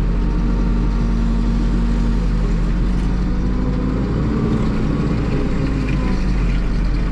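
Backhoe loader's diesel engine running steadily, heard from inside the cab while the operator works the digging arm.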